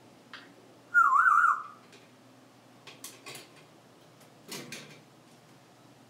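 African grey parrot giving one short warbling whistle about a second in, its pitch wavering rapidly up and down. A few soft clicks and a brief rustle follow.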